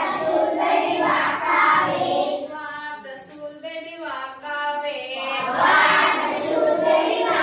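A group of schoolchildren singing an action song together, with a woman's voice leading. The singing thins and drops in level for a couple of seconds in the middle, then the full group comes back in.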